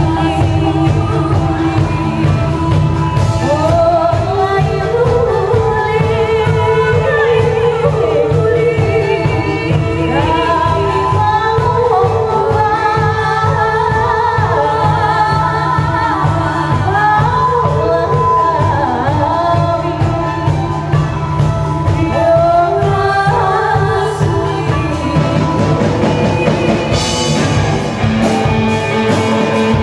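Live performance by an ensemble of traditional Minangkabau and modern band instruments: women sing wavering melodic lines into microphones over a steady bass and keyboard. Near the end the band grows fuller, with drums and cymbal hiss coming in.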